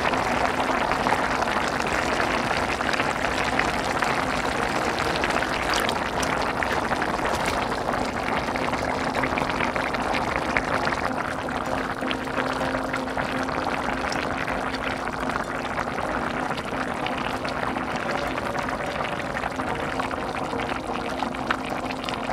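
Pot of kimchi stew at a rolling boil: steady bubbling and popping.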